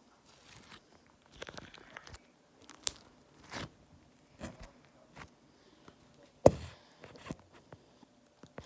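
Green foam-ball slime being squeezed and poked by hand, giving scattered sticky clicks, crackles and small pops, with one sharper pop about six and a half seconds in.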